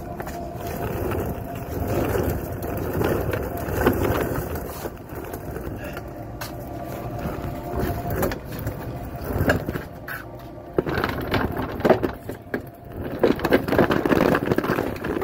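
Small cart's wheels rolling over a concrete tunnel floor: a continuous rumble with many clicks and knocks, louder and more knocking in the last few seconds.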